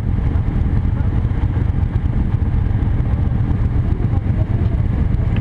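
Motorcycle engines running low and steady, idling at a stop and then pulling away slowly.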